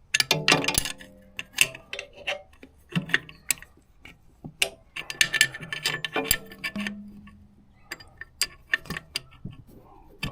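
Wrench and metal parts clicking and clinking in irregular bursts while a bolt is tightened on the alternator mounting of a BMW boxer engine.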